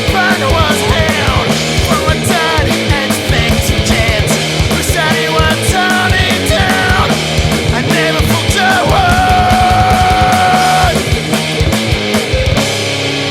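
Rock music with heavy drums and a distorted guitar, its lead line holding one long note about two-thirds of the way through.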